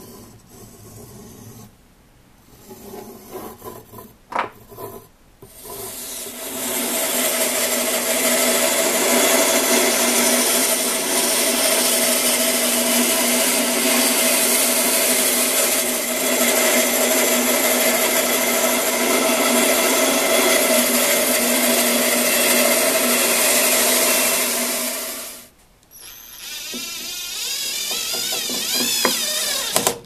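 Bandsaw running steadily as it cuts a thick oak bowl blank, starting about six seconds in and stopping abruptly about twenty-five seconds in. Before it there is light scratching on the board; after it a cordless drill runs with rising and falling speed.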